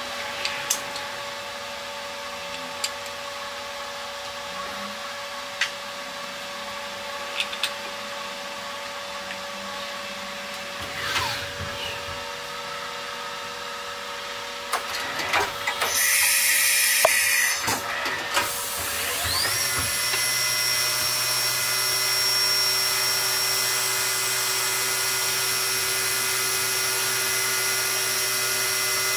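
Fadal CNC vertical milling machine running its cycle: a steady machine hum with scattered clicks, then a loud hissing burst about halfway through. After that the spindle winds up with a rising whine and holds a steady high whine as the cutter machines the part.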